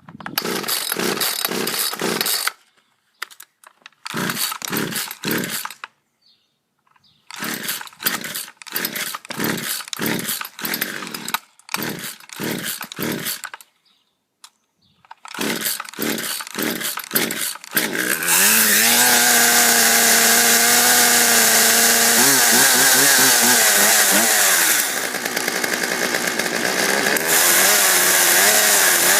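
Poulan two-stroke chainsaw being pull-started on full choke: four or five pulls of the starter cord, each a quick run of cranking strokes. About 18 seconds in, the engine catches and keeps running. It is running so it can burn the last fuel out of the carburetor after the tank has been drained.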